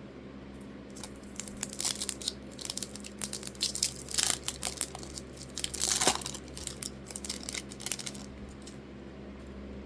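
Foil wrapper of a 2024 Topps Resurgence card pack crinkling and being torn open. A run of sharp crackles starts about a second in and stops about a second before the end.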